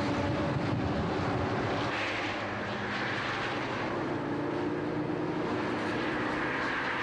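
Suzuki sport motorcycle engine running steadily at speed on a highway, with road and traffic noise under it.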